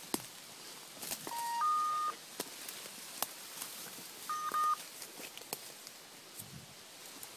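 Electronic beeping from a hunting dog's electronic collar: two short sequences of steady beeps, the first stepping up in pitch, the second a few seconds later, while twigs snap and brush crackles underfoot.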